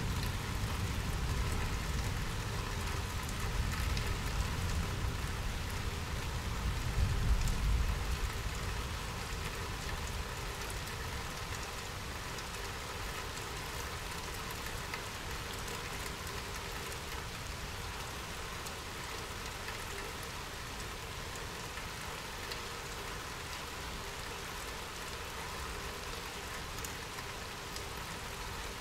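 Steady rain falling and pattering on surfaces, with a low rumble that builds over the first several seconds and fades away by about ten seconds in.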